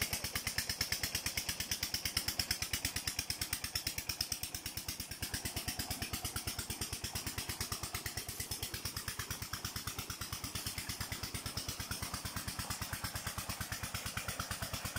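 Engine chugging steadily, about ten even beats a second, with water pouring from a pump outlet pipe and splashing into a concrete tank.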